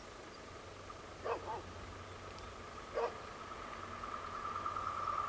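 A dog barks: a quick double bark about a second in and a single bark about three seconds in. Behind it a steady high whine grows louder near the end as a train approaches the crossing.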